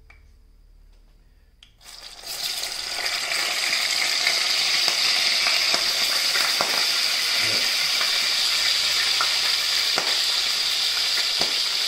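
Wet boiled sourdough dumplings dropped into a pan of hot oil, which starts sizzling suddenly about two seconds in and settles into a loud, steady sizzle with occasional pops. The spatter comes from the water on the dumplings hitting the oil.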